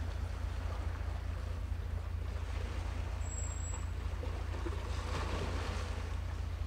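Seaside ambience: a steady low rumble under the rush of wind and waves, swelling briefly about five seconds in.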